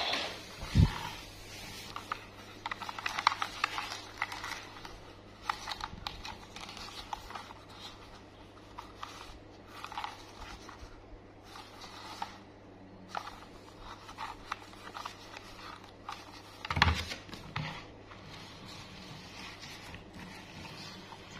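Gloved hands handling a small plastic toy train engine: scattered light clicks, taps and scrapes of plastic, with a thump about a second in and a louder knock about three quarters of the way through.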